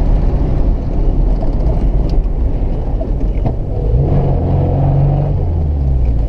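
Cabin sound of a Chevrolet Chevette 1.6 on the move: its four-cylinder engine running under way with heavy road and wind noise, settling into a clearer steady hum about four seconds in.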